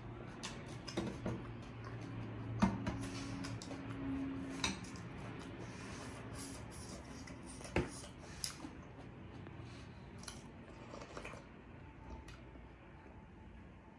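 Close-up eating sounds: chewing, and sipping dal from a plastic spoon, with a few sharp clicks of the spoon against a glass bowl.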